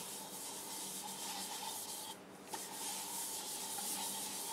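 Paper towel rubbing butcher block conditioner onto a cherry bowl turning on a wood lathe: a steady rubbing hiss over a faint motor hum, easing off for a moment a little past halfway.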